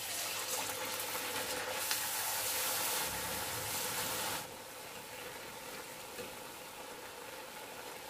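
Rice-flour chekkalu sizzling as they deep-fry in hot oil in an aluminium kadai. The sizzle starts as a disc is slipped into the oil and stays loud for about four seconds. It then drops to a quieter, steady sizzle.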